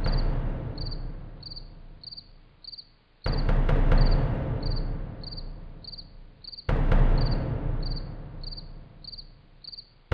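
Crickets chirping steadily, about three short chirps a second, under a dark suspense music bed. Deep booming hits strike about every three and a half seconds and fade away between strikes; they are the loudest sound.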